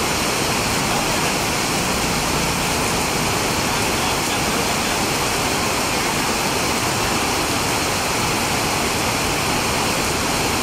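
Heavy rain pouring down onto a wet paved street, a dense, steady hiss that does not let up.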